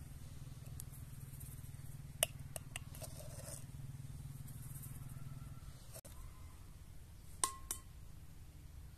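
Hand food preparation: a few light clicks and taps, the sharpest about two seconds in, a small cluster around three seconds in and two more near the end, over a steady low hum.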